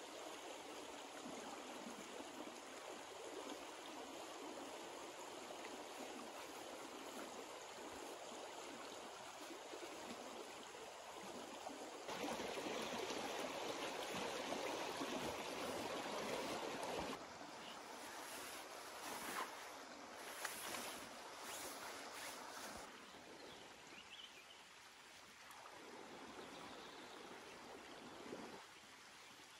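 A shallow river running over stones, a steady rushing that gets louder for about five seconds in the middle. A few short, faint rustles come over it in the second half.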